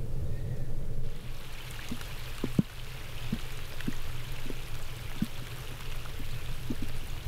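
Light rain falling on a lake: a soft steady hiss of drops on the water, with separate drops plinking here and there. A low steady rumble runs underneath.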